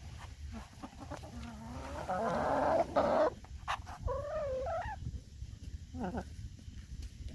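Chickens calling: a harsh, drawn-out call about two seconds in, then a wavering, warbling call, and a short call near the end.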